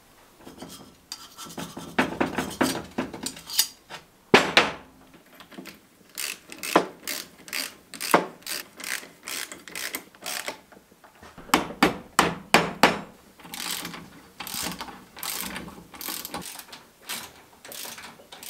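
Ratchet wrench clicking as it turns the bolts of a Land Rover front axle swivel housing, in several runs of quick clicks with short pauses between.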